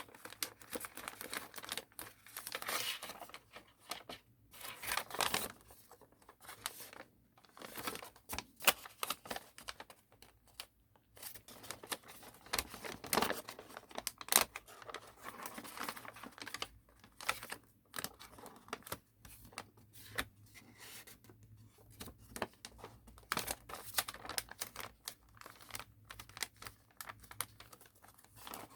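A sheet of origami paper being folded and creased by hand: irregular crinkling and rustling with crisp snaps as folds are pressed down.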